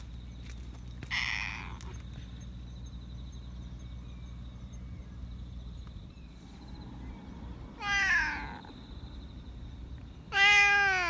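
Black cat meowing twice, about eight seconds in and again near the end, the second meow louder and longer, its pitch falling away at the end.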